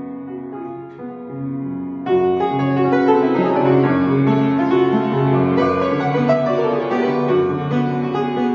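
Upright piano being played, soft at first, then fuller and louder from about two seconds in.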